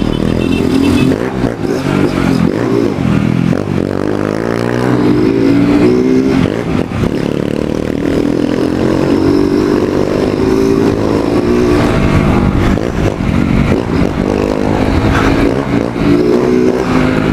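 Motorcycle engine under way, revving up through the gears and easing off several times as it rides.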